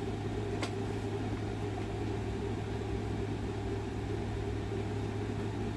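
Steady low mechanical hum, even in level throughout, with a single faint click a little over half a second in.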